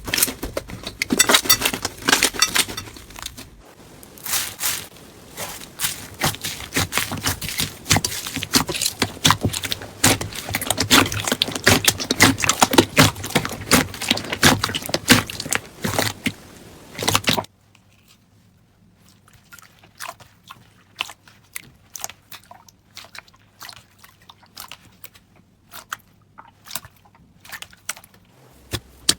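Crunchy slime being worked, a dense run of crackling clicks; about 17 seconds in it cuts to a much quieter clip of sparse pops and clicks.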